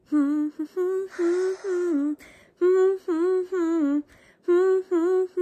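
A woman humming a tune with her mouth closed, in a string of short notes that dip and rise, with brief gaps between phrases.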